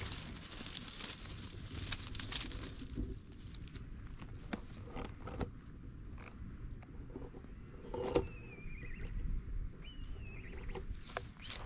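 Dry grass and leaves rustling and crackling close by as a cat rolls and shifts in them, with scattered small clicks and a low wind rumble on the microphone. From about eight seconds in, a bird gives a few thin whistled calls that glide down in pitch.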